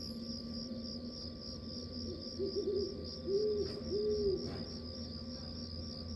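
Crickets chirping in a fast, even pulsing rhythm, with a few short low hooting calls in the middle.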